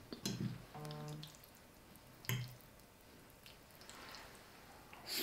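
Faint, scattered wet clicks and drips, with a short steady hummed tone about a second in.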